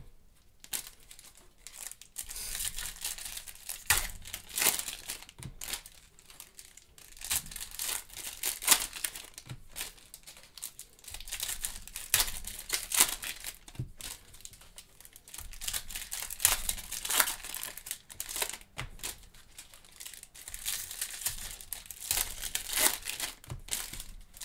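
Trading card packaging (wrappers and plastic wrap) being torn open and crumpled by hand: an irregular run of crinkles and rips, denser and louder in some spells than others.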